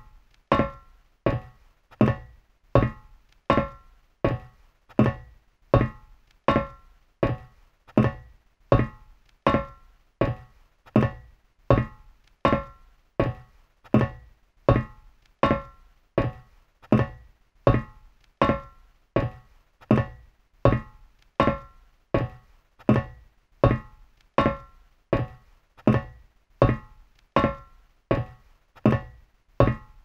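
Heavy boots walking on a metal floor at a steady, even pace, roughly three steps every two seconds. Each step is a clanking impact with a short metallic ring.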